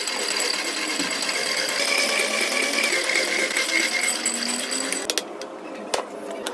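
A machine tool cutting steel: dense mechanical cutting noise with a steady high whine, which stops abruptly about five seconds in.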